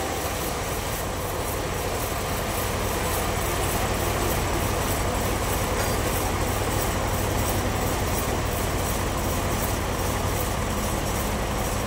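Sawmill machinery running steadily: an even mechanical noise with a low hum underneath and no change through the stretch.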